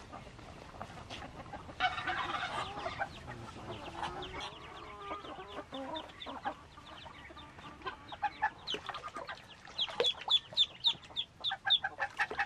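Ducklings peeping: a rapid series of short, high, falling peeps, about three a second, loudest in the last few seconds, over softer scattered calls of farm fowl. A brief rush of noise about two seconds in.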